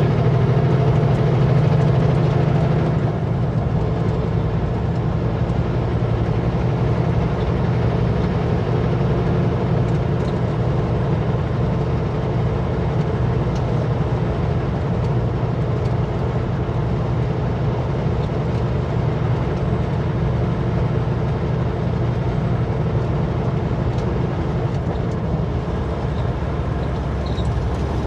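Kenworth W900L semi truck driving, its diesel engine and road noise making a steady low drone that eases slightly about three seconds in.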